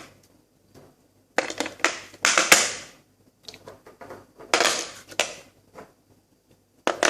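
Hard plastic handling sounds as AA batteries are fitted into a toy drone's remote control battery bay: several short scraping, rattling bursts with a few sharp clicks near the end.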